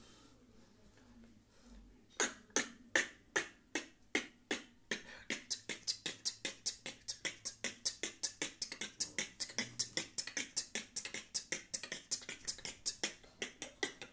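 Beatboxer making hollow clops: sharp, hollow tongue clicks made in the mouth. They start about two seconds in at about two and a half a second and quicken to around four or five a second in a steady rhythm.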